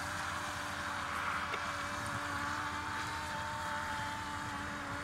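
Electric motor and propeller of an Elektro-UHU RC glider running steadily under power as it climbs after launch: a steady hum with a higher whine that rises slightly about halfway through, over wind noise on the microphone.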